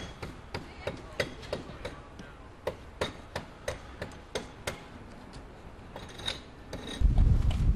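A regular series of sharp knocks or taps, about three a second, then a loud low rumble starting near the end.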